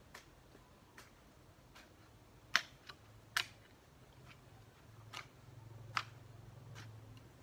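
Long-handled garden hoe chopping into wet soil, a sharp strike about once a second, the two loudest about two and a half and three and a half seconds in.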